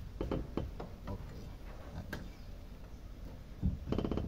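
Light clicks and knocks of a plastic fuel pump module and its flange being pressed and shifted by hand into a car's fuel tank opening, with a brief pitched sound near the end.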